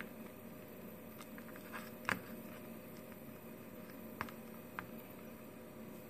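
Light clicks and taps of alligator-clip leads and wires being handled on a desk, the sharpest about two seconds in and two smaller ones later, over a low steady hum.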